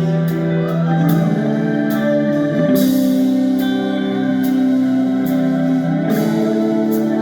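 Live rock band playing an instrumental song intro: held electric guitar and keyboard chords that change every few seconds, with sharp high hits scattered throughout.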